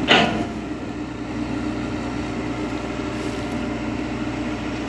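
Komatsu PC200 excavator's diesel engine running steadily as the machine digs. A short burst of noise comes just at the start.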